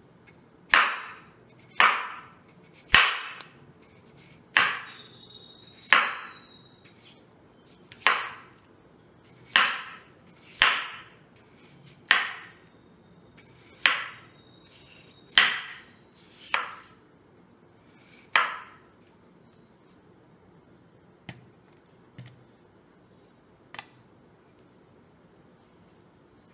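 Broad cleaver-style kitchen knife slicing through a peeled raw potato and striking a wooden cutting board: about a dozen sharp chops, roughly one every second or so. The chopping stops a little past halfway, leaving only a few faint ticks.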